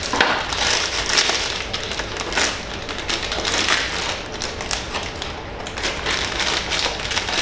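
Blind-box toy packaging being handled and torn open: continuous crinkling and crackling of the wrapping, with light taps.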